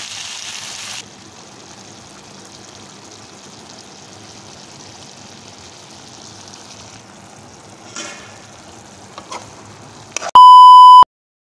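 Vegetables sizzling as they sauté in an oiled wok, quieter after about a second, with a few spatula clicks about eight to nine seconds in. Near the end, a very loud, steady electronic beep lasts just over half a second.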